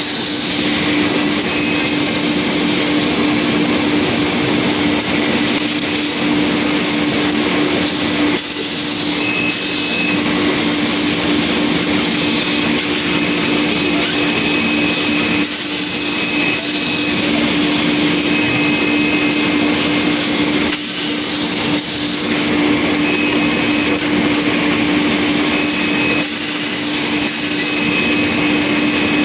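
Steady running noise of sanding-belt production machinery: a constant motor hum under an even rushing noise, with a faint high whine that comes and goes several times.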